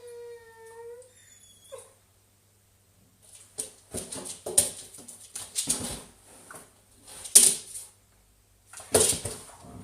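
A dog whining: a held whine that fades about a second in, then a string of short, harsh, noisy sounds.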